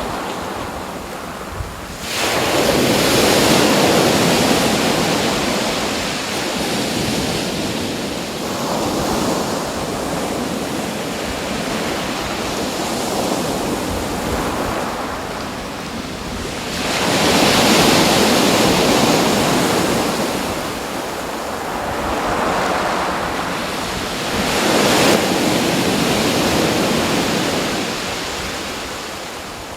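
Rushing natural ambience that swells and ebbs in slow surges, in the way breaking surf or gusting wind does. A sharp, loud surge comes about two seconds in, another large one about halfway through, and smaller ones follow.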